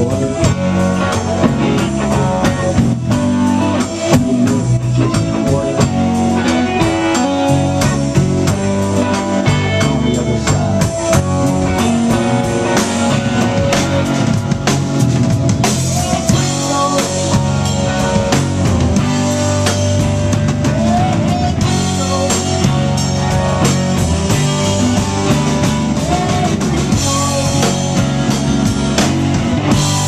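Live rock band playing at full volume: distorted electric guitars, electric bass and a drum kit keeping a steady beat.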